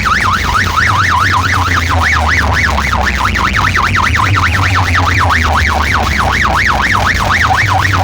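Fast warbling siren effect blasted through a large DJ sound system, the tone sweeping up and down about five times a second over a heavy, steady bass.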